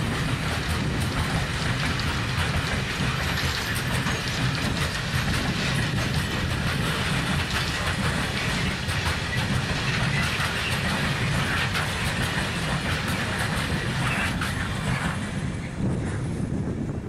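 A long freight train of open coal wagons rolling past on the rails, wheels rumbling with scattered clicks. The sound fades away near the end as the last wagon moves off.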